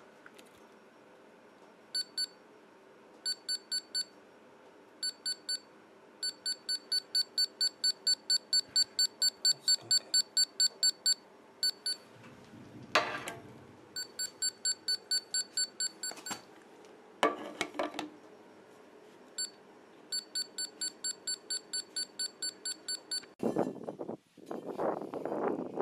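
An electronic beeper sounding short, identical high beeps in runs of about three a second, with pauses between the runs. Brief clatters come in between, and rustling handling noise near the end.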